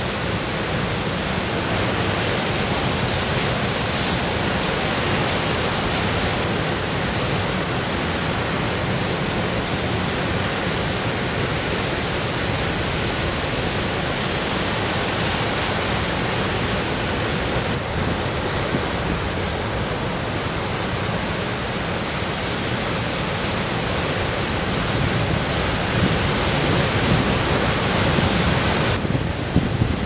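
Heavy storm surf on Lake Superior during a winter storm: waves breaking make a steady, dense rush of noise with no separate crashes standing out, swelling slightly near the end.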